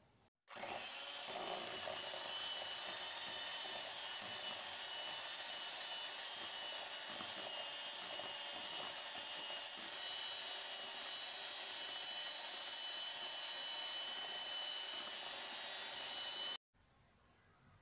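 Electric hand mixer running steadily, its beaters whipping cream in a plastic bowl, with a steady high motor whine.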